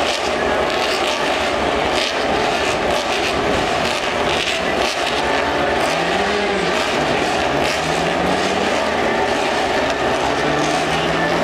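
Steady drone of distant engines, their pitch rising and shifting slowly in the second half, over an outdoor wash of noise.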